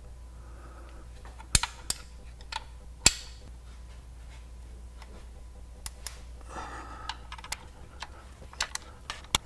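Scattered metallic clicks and taps of a 15 mm wrench on the bolts under the car as they are worked loose, with a short scraping rustle partway through, over a steady low hum.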